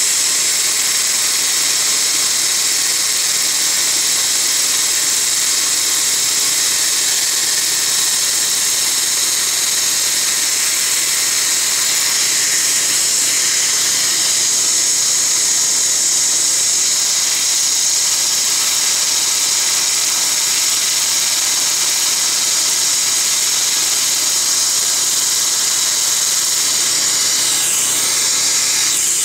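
Er,Cr:YSGG water laser (Biolase Waterlase) cutting inside a tooth with its air-water spray, a steady high hiss with no break.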